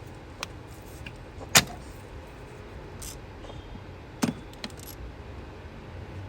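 A few sharp clicks and knocks from hand tools and parts being handled during engine-bay reassembly, the loudest about one and a half seconds in and another near four seconds in.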